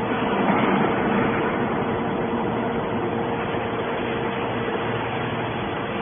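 Hydraulic scrap metal baler's pump and motor running: a steady machine drone with a constant whine.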